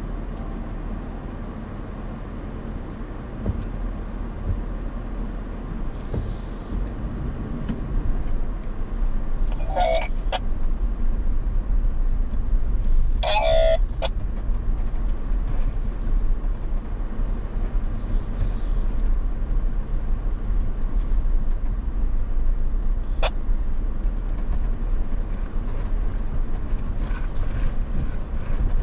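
A vehicle driving, giving a steady low rumble, with two short higher-pitched squeaks about ten and thirteen seconds in.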